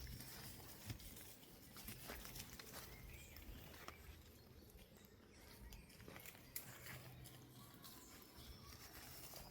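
Quiet forest ambience with faint, irregular footsteps on the forest floor.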